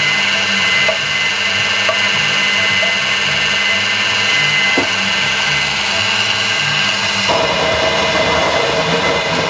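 Magnetic drill press running an annular cutter on steel, a steady motor whine with a rough grinding edge. About seven seconds in the sound turns rougher and fuller.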